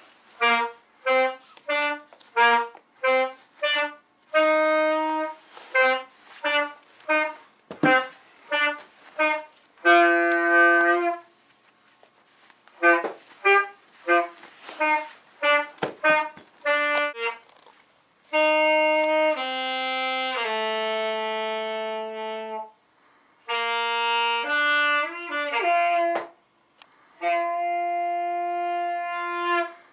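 Saxophone practice: a long run of short, separate notes, then several long held notes that step downward in pitch.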